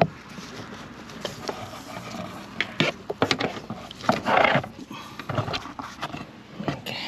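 Handling noise from gloved hands working a trailer wiring harness and its plastic connectors: scattered clicks and taps, with a louder rustling scrape about four seconds in.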